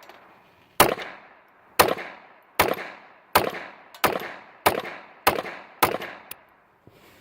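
A .22 LR semi-automatic pistol, a Ruger Mark II, firing eight shots in steady succession, a little under one a second, each crack followed by a short ringing echo. The shots stop about a second before the end and are followed by a faint click.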